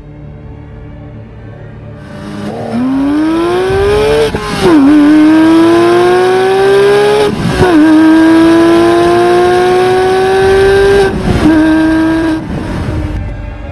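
Porsche 997 GT3's flat-six engine accelerating hard through the gears. Its pitch climbs steadily in each gear, with three upshifts that each bring a sudden drop in pitch. It then holds steady briefly before fading out.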